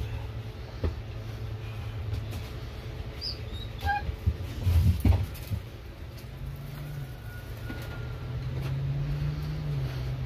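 A steady low machine hum that rises slightly in pitch about two-thirds of the way through, with a few light knocks and clatters in the middle.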